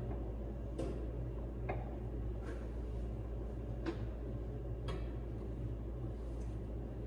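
A steady low hum with faint light clicks or ticks every second or so.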